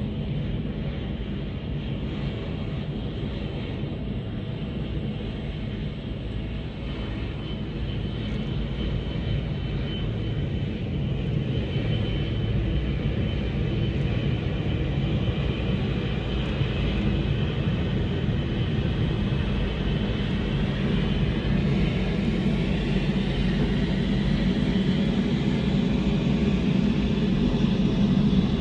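Jet airliner engines: a steady rumble with a thin high whine, growing slowly louder.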